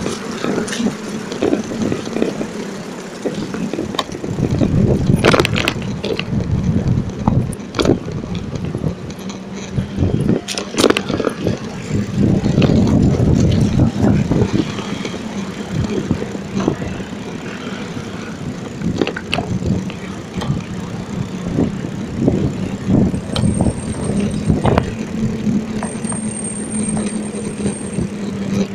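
A bicycle ridden over paving slabs, rattling and knocking over the joints, against city traffic. The low rumble swells twice, a few seconds in and about halfway.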